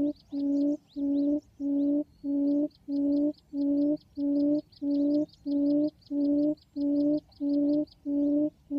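Field quail lure call, a steady run of low hoots at about two a second, repeated with machine-like regularity like a looped recording played to draw quail to the trap. Faint, rapid high chirps run above it.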